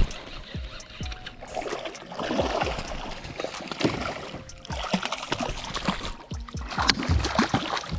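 Hooked smallmouth bass splashing at the water's surface beside a kayak in several bursts as it is reeled in, with background music.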